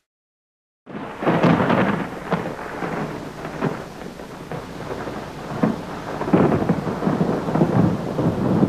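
Recorded thunderstorm: rolling thunder over steady rain, starting after about a second of silence, swelling and fading in irregular surges.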